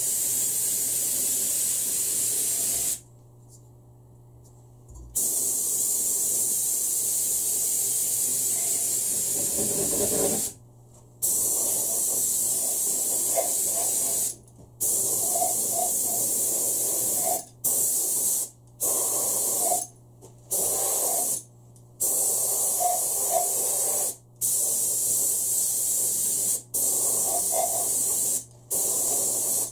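Gravity-feed compressed-air paint spray gun hissing as it sprays paint, in a series of bursts broken by short pauses where the trigger is let go, about ten times.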